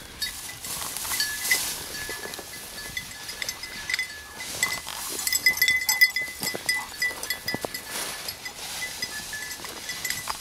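A small bell on a hunting dog's collar jingling in quick, irregular rings as the dog runs and quarters through the cover, over the rustle of brush and dry grass.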